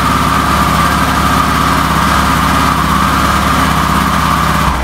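Yamaha XT600E's air-cooled 600cc single-cylinder engine idling steadily with the choke pulled, just after a cold start from a jump starter on a flat battery.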